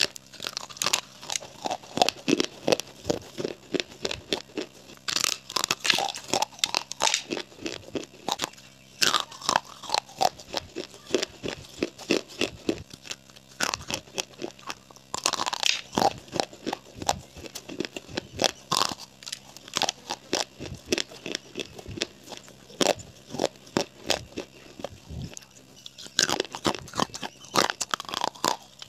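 Baked clay pipes, some coated in wet clay paste, being bitten and chewed close to a microphone: dense, sharp crunches throughout, with heavier spells of crunching about every ten seconds.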